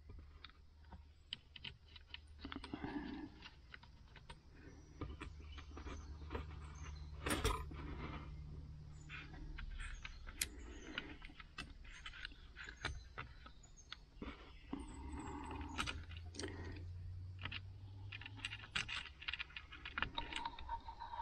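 Irregular small clicks and rattles from handling the plastic steering-wheel switch housing and the new cruise control switch with a Torx screwdriver, one louder click about seven and a half seconds in, over a faint low hum.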